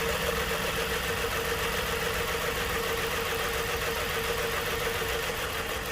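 Nissan Murano V6 engine idling steadily, with a constant hum over the low engine rumble.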